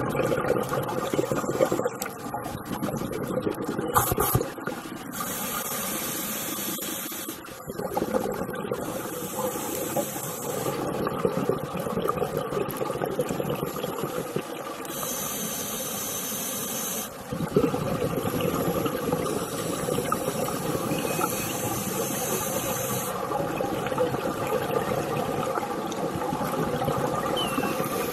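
Scuba diver breathing through a regulator underwater. There are four hissing inhales, each about two seconds long, with bubbling exhales between them.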